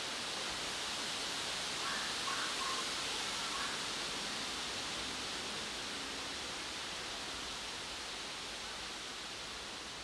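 Steady outdoor background hiss with no clear source, with a few faint short chirps about two to four seconds in.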